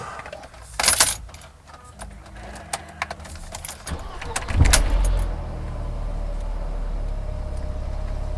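Keys jangle and click in the ignition, then the 2002 Mercedes-Benz C230 Kompressor's supercharged M111 four-cylinder cranks and starts about four and a half seconds in and settles into a steady idle. It is the first start after the recirculation air flap was replaced.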